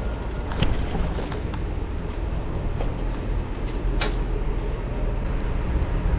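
Steady rumble of city street traffic, with a few light clicks and one sharp click about four seconds in.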